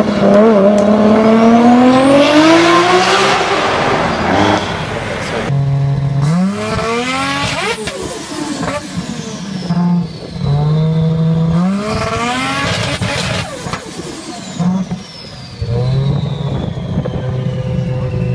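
Nissan Skyline R34 GT-R twin-turbo straight-six accelerating hard, its pitch climbing for about four seconds. Then another R34 GT-R idles and is revved on the spot several times, each rev rising and dropping back to idle, with a high whistle falling slowly in the quieter stretch near the end.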